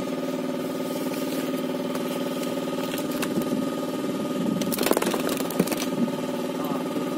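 A fishing boat's small engine runs steadily. A brief rustle and clatter of handling comes about five seconds in.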